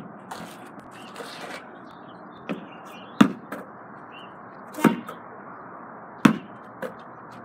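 Basketball bouncing and being caught: a few sharp, short thuds a second or more apart, three of them loud.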